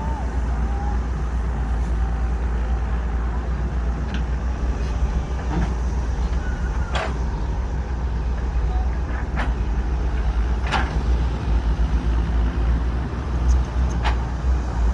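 Heavy diesel engines of excavators and dump trucks running with a steady low rumble, while the excavators dig. About five sharp metal clanks come at uneven intervals.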